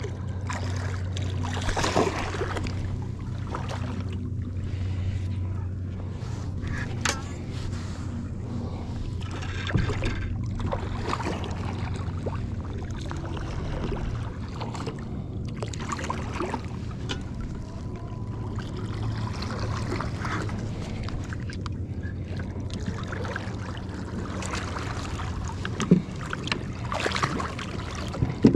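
Water lapping and splashing around a fishing kayak while a hooked drum is fought beside it, over a steady low hum. A few sharp knocks or splashes break through, the loudest two near the end as the fish reaches the surface.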